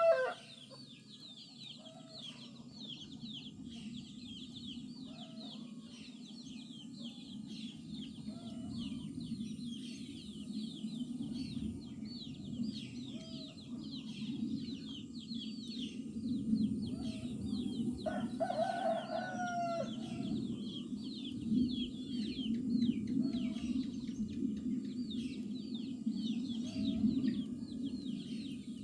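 Farmyard chickens: a rooster crows once about two-thirds of the way through, after another crow ends just as the sound begins, and hens cluck briefly every few seconds. Dense, rapid high chirping of small birds runs over it, with a low steady rumble underneath that grows louder partway through.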